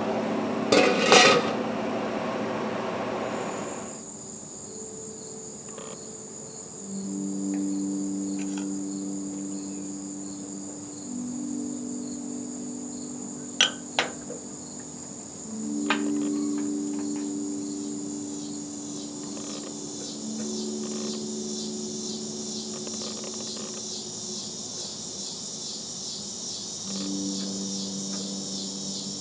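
Water boiling hard in a boiling-water canner, with a sharp clink about a second in, until about four seconds in. Then crickets chirp steadily at a high pitch, with two quick clicks near the middle.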